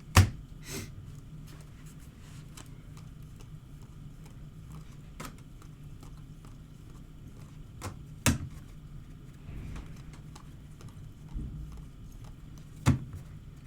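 Sharp taps and clicks of trading cards and packs being handled on a table, a few seconds apart, the loudest right at the start, over a low steady hum.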